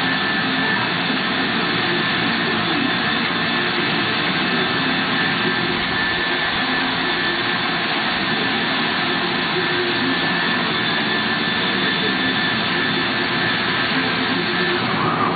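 Biesse Skipper 100 CNC panel machine running under power: a steady rushing noise with a high whine held through it.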